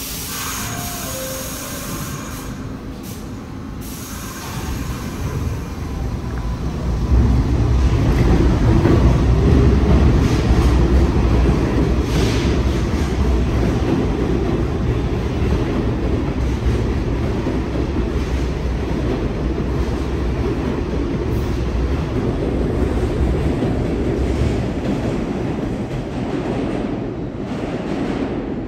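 New York City subway train running past on the rails, a deep rumble that builds over the first several seconds, is loudest about eight to twelve seconds in, holds steady and eases near the end.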